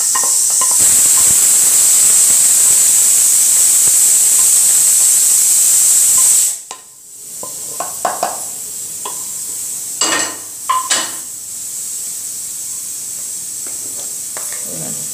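Hot oil sizzling steadily in a pan of fried dried red chillies and cumin, cutting off abruptly about six seconds in. After that a spoon scrapes and clinks against the metal pan a few times as the fried spices are tipped out, over a fainter steady hiss.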